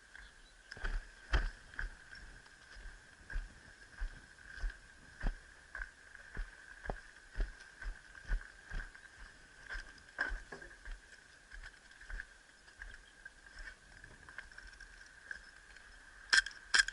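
Footsteps at a walking pace, about two steps a second, over a steady high-pitched whine. Two sharp clicks come near the end.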